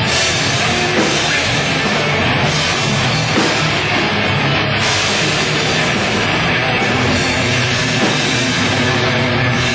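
Heavy metal band playing live: electric guitars, bass and drum kit, loud and dense without a break.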